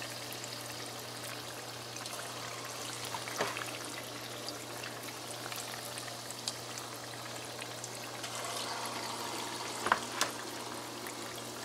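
Pholouri batter balls deep-frying in a pot of hot oil: steady, quiet sizzling with faint crackles, over a low steady hum. A few short sharper clicks sound about three and a half seconds in and again around ten seconds.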